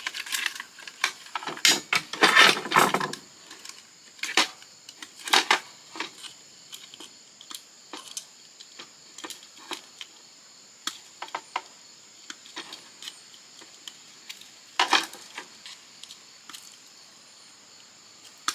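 Plastic and metal parts of a vintage Canon fax machine clicking and clattering as it is pried apart by hand for scrap. A denser, louder rattling comes about two seconds in, and a sharp clatter near the end, with scattered small clicks between.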